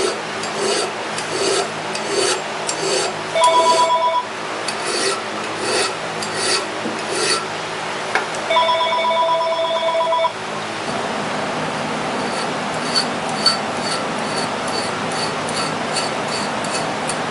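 Hand file scraping in strokes on the steel frame of a Colt-style 1911 pistol, blending the frontstrap. After about ten seconds the strokes settle into a steady rhythm of about two a second. A telephone rings twice in the first half, each ring lasting about a second.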